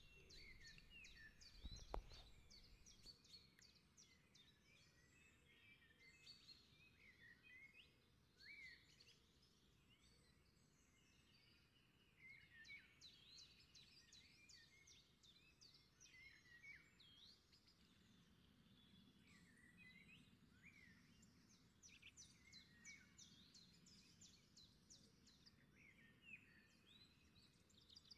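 Faint background birdsong: many small birds chirping and trilling, with runs of rapid trills. There is a single soft knock about two seconds in.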